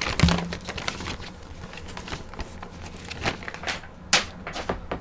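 Handling of a trading-card pre-release kit's paper and cardboard contents: a steady run of light rustles, taps and clicks.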